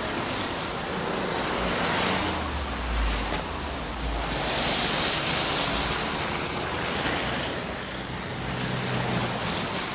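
A rushing noise that swells and fades several times, with a low rumble about three seconds in.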